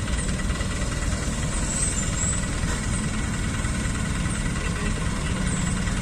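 Dump truck engine idling steadily, a low and even running sound.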